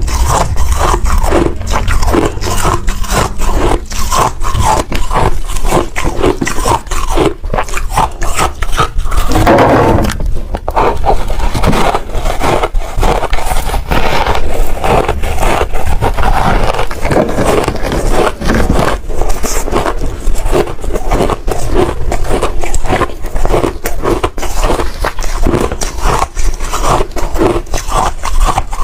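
Close-miked crunching and chewing of hard shaved ice, a dense, rapid run of crisp crunches that goes on without a break.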